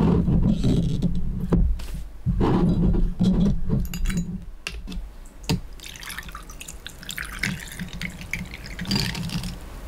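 A few low thumps and sharp knocks of kitchen handling, then from about six seconds in, water running and spattering from a kitchen tap.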